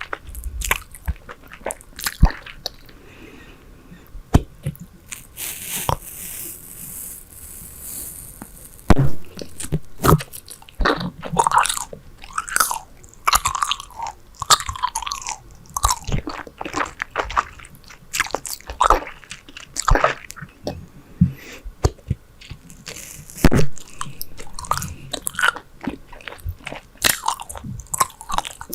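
Super Bubble bubble gum chewed close to the microphone: an irregular run of smacks, clicks and squishes as the mouth works the gum.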